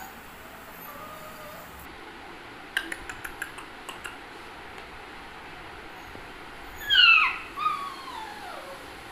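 Spitz puppies: a quick run of clicks about three seconds in, then a high puppy yelp that falls in pitch about seven seconds in, followed by a second, longer whine gliding downward.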